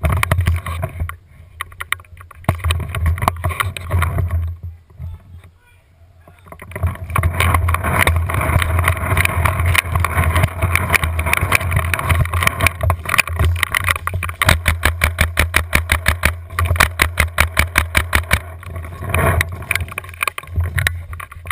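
Handling and movement noise on a camera mounted on the barrel of a Tippmann A5 paintball marker as the player runs: a heavy low rumble with a rattle. From about a third of the way in, a long run of sharp clicks comes about five a second.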